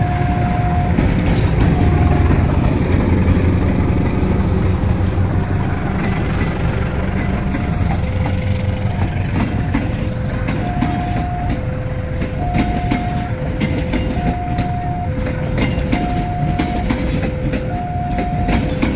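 Diesel-hauled passenger train passing at the level crossing: the locomotive's engine runs loudly for the first several seconds, then the coaches' wheels clatter over the rail joints in quick clicks. Over it, the crossing alarm sounds its alternating two-tone ding-dong, a little under a second per tone.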